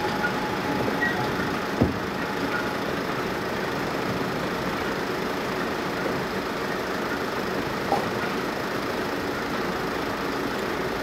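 Steam train pulling away at a distance, a steady rumble of locomotive and carriages, with the tail of a steam whistle note dying out just after the start. Two short knocks, about two seconds in and again near eight seconds.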